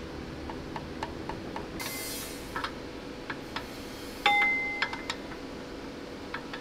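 Steel drift bar working against a rusty gear and bearing on a StuG III differential shaft, metal on metal: a run of light clicks at about three to four a second, a short hiss about two seconds in, then one loud ringing clang a little after four seconds in, followed by a few more taps.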